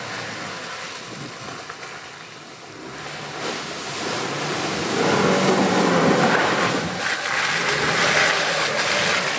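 Land Rover Defender 90 P300's four-cylinder turbo petrol engine pulling as the SUV drives over a muddy woodland track, its tyres churning and splashing through the mud. It grows louder as it approaches and passes close by, loudest a little over halfway through.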